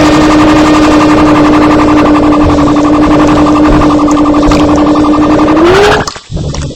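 A loud, distorted tone held at one pitch for about six seconds, with a fast rattling flutter through it. It slides down as it begins and rises just before it cuts off suddenly near the end.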